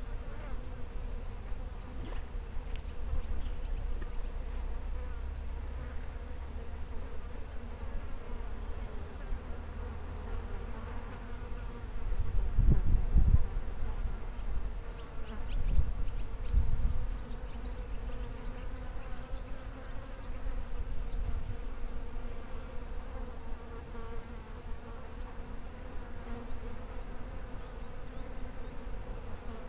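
Insects buzzing steadily in summer riverbank vegetation, with a few louder low rumbles about midway.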